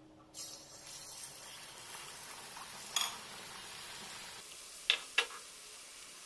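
Batter-coated banana slice frying in hot coconut oil: a steady sizzle that starts about half a second in, with a few sharp clinks around three and five seconds in.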